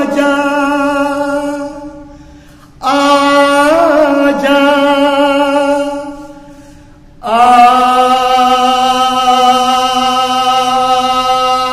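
A man singing unaccompanied in a classical style, long held vowel notes with vibrato. There are three notes with short breaths between them, each opening with a quick turn in pitch, and the last is held for about four seconds.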